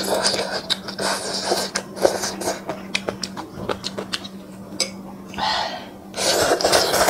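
A person slurping noodles from a bowl of broth and chewing close to the microphone, with wet mouth clicks between the slurps. There is a slurp at the start and a long, loud slurp near the end.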